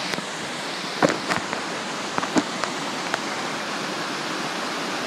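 Steady rushing of a large waterfall on a creek, with a few short knocks or clicks in the first half.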